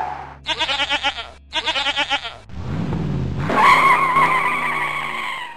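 Cartoon sound effects: a goat bleats twice, then a short rumble is followed by a long tire squeal that fades near the end.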